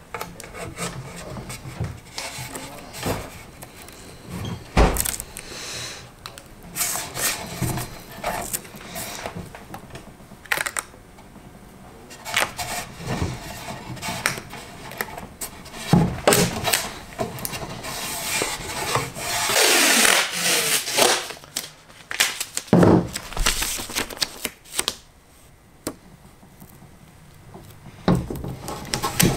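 Painter's tape being pulled off the roll in short tearing rips and rubbed down by hand along a rocket body tube and fins, with scattered handling knocks; one longer rip comes about two-thirds of the way in.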